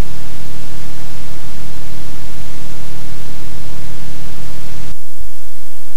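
Loud steady hiss of static from a blank stretch of videotape, with a low hum under it that cuts out about five seconds in, leaving a thinner hiss.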